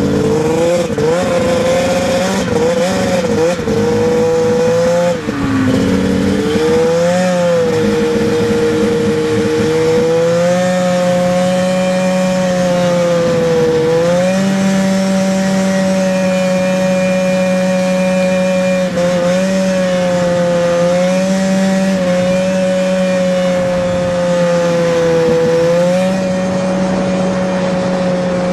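Small vehicle engine running at steady high revs while being ridden, its pitch wavering in the first few seconds and dipping briefly a couple of times.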